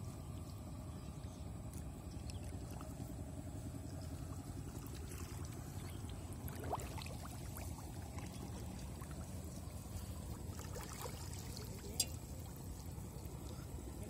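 Shallow paddy water sloshing and dripping as a wet gill net is pulled up and handled, over a steady low rumble. A louder splash comes about halfway through, and a single sharp click comes near the end.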